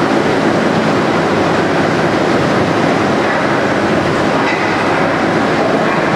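Hurricane-force wind and rain battering a building, heard from inside through the windows: a loud, steady rushing noise with no break.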